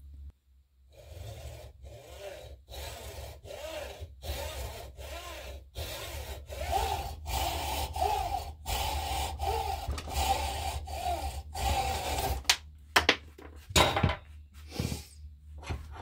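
Hacksaw cutting through a chainsaw part clamped in a bench vise: more than a dozen steady back-and-forth strokes, under one a second. The sawing stops about three-quarters of the way through, followed by a few sharp knocks.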